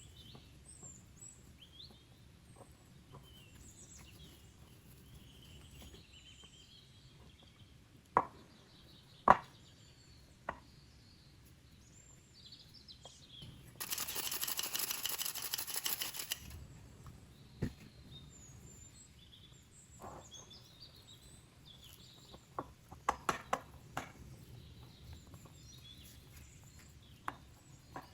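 Kitchen work sounds: scattered knocks and clicks of utensils, with a noisy rattling burst lasting about two and a half seconds midway. Birds chirp faintly in the background.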